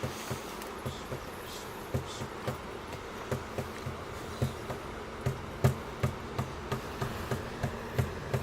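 A hand drum beaten in a steady, even rhythm of about three low beats a second, over a faint steady hiss.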